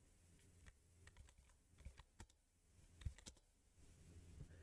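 Faint, scattered computer keyboard key presses against near silence: arrow and Enter keys stepping through a text-mode installer menu, with the firmest press about three seconds in.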